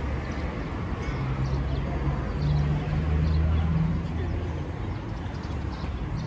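Low rumble of street traffic, with a vehicle engine humming louder for a couple of seconds in the middle.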